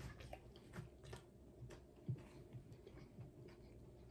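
Faint chewing of a mouthful of hamburger: soft, irregular small clicks from the mouth, one a little louder about two seconds in.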